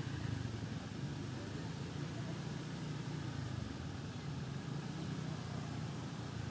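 Steady low rumble of distant engine traffic, unbroken throughout.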